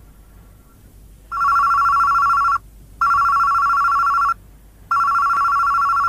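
Electronic desk telephone ringing: three loud warbling two-tone rings, each about a second and a half long, the first starting about a second in.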